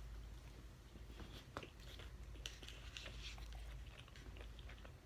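A person chewing a large bite of donut close to the microphone: faint, with small scattered mouth clicks.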